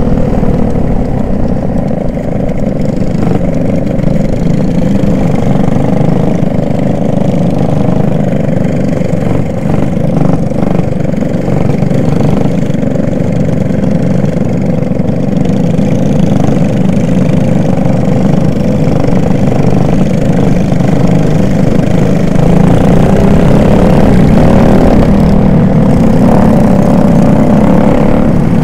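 Racing kart's engine heard from an onboard camera on the kart, running hard at race speed, its pitch falling and rising as the driver lifts and gets back on the throttle through the corners.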